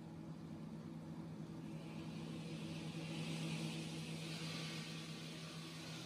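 Multi-blade stone-cutting saw running through a stone block under water spray: a steady machine hum with a hiss of spray and cutting that swells from about two seconds in.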